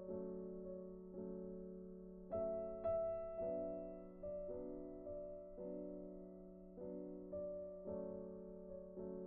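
Background music: slow, soft piano chords, each struck and left to fade, about one a second.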